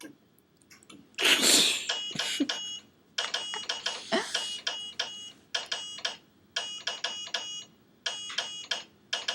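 Quick runs of high electronic beeps, several beeps per run, repeating about once a second. They follow a loud, short burst of noise about a second in.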